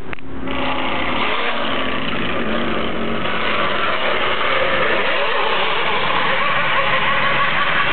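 Radio-controlled model speedboat's motor running flat out as the boat races across the water, starting abruptly just after the beginning and then holding steady.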